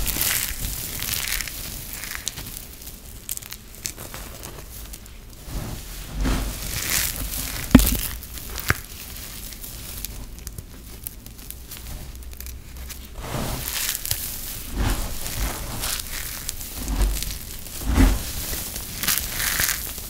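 Hands scooping, squeezing and rubbing through a heap of dry, crispy grated soap shavings: a continuous crunchy rustle with irregular louder crunches as handfuls are squeezed.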